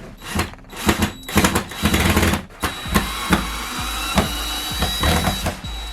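Power tool running amid a string of sharp knocks and clatter, with a steady high whine setting in a few seconds in.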